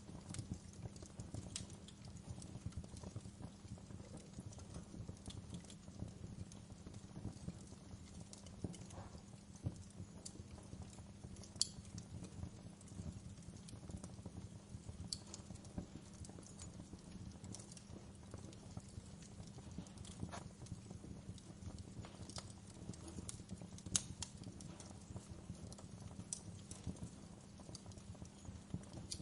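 Wood fire crackling in a fireplace: irregular sharp pops and snaps over a steady low rumble of the burning fire, with two louder pops, one near the middle and one later on.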